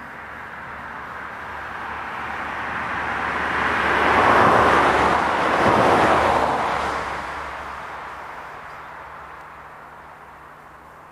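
A vehicle passing by: a rushing noise that swells to a peak about halfway through and then fades away.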